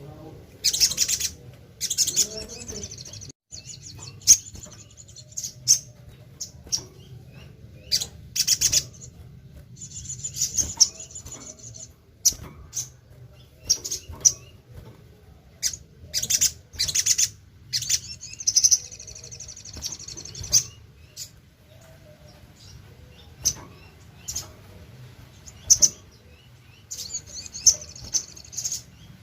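Sogok ontong (sogon) bird singing: high, fast trilling phrases and sharp chirps repeating every second or two, over a faint low steady hum. It is a lure call, played to draw other sogon birds into singing.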